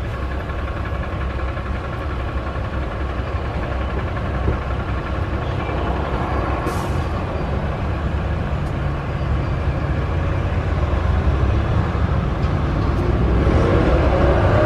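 Car engine idling with a steady low rumble, getting a little louder near the end.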